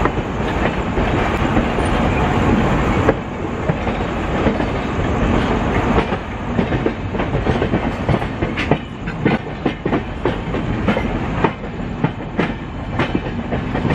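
Shatabdi Express LHB coaches running on the track, a steady rumble of wheels on rail. From about six seconds in, a string of sharp clickety-clack as the wheels cross points and rail joints in the station yard.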